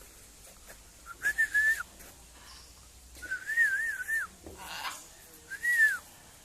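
Clear whistled notes in three short phrases. The middle phrase is longer and warbles up and down.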